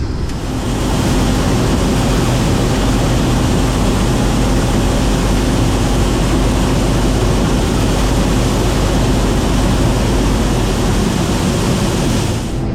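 Case IH 2388 combine harvester running at work, a loud steady rush of machine noise over a low engine hum.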